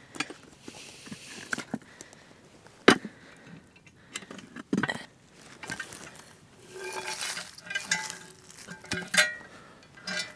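Clinks and knocks of a cast iron lid and hot charcoal briquettes as the coals are tipped and knocked off the lid. Scattered sharp knocks, the loudest about three seconds in.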